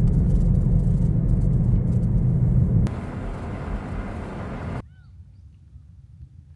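Loud, low rumbling wind noise on the microphone. About three seconds in it cuts with a click to a somewhat quieter stretch. Near five seconds it drops abruptly to a quiet outdoor background with a few faint bird chirps.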